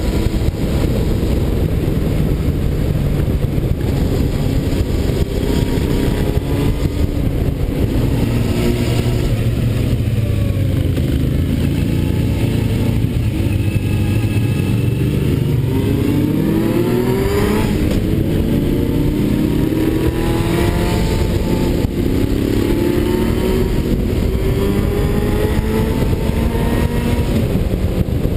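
Motorcycle engine heard from on the bike, with a steady rush of wind on the microphone. Partway through, the revs climb steadily, drop sharply at a gear change, then climb again.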